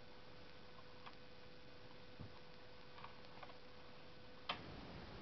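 Faint, scattered small clicks of a Marx Atomic Cannon toy being handled and readied, over a faint steady hum. The hum cuts off with a sharper click about four and a half seconds in.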